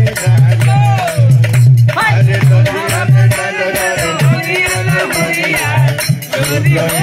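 A man singing a Bhojpuri village wedding song (vivah geet) into a microphone, with hand-clapping and rattling percussion over a steady low beat.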